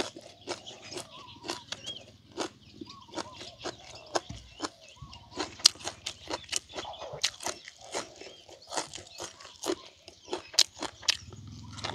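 A man chewing a mouthful of food close to the microphone, with an irregular run of sharp crunches and wet mouth smacks.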